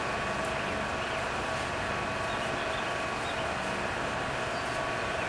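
Electric shop fan running with a steady hum, with faint swishes of a cloth rubbing down a hanging metal part.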